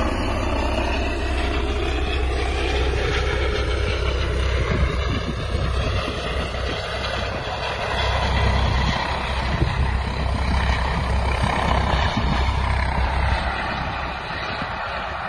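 Air-ambulance helicopter flying low past, its rotor beat and engine whine loud and steady, with the whine shifting in pitch. It fades slightly near the end as it moves away.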